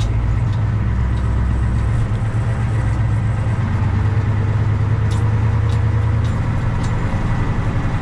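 A truck's engine running steadily at low speed, heard from inside the cab as a steady low hum. A few light clicks come about a second apart near the middle.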